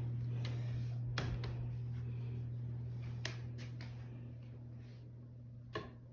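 A steady low electrical hum, with three short sharp clicks: about a second in, about three seconds in and near the end.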